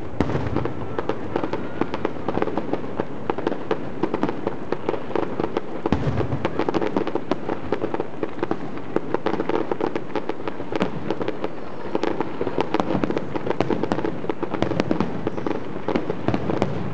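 Fireworks display going off in a dense, continuous barrage of bangs and crackles, many reports a second, with a heavier low boom about six seconds in.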